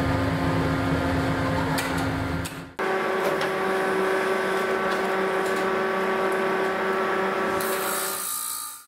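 Steady humming of die-casting machinery. The hum changes abruptly twice: about three seconds in to a higher-pitched hum, and near the end to a hiss.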